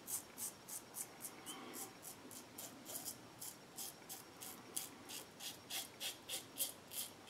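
West Coast Shaving 3D Wrap safety razor with a Rockwell double-edge blade scraping through lathered stubble on the upper lip and chin in short quick strokes, about three a second.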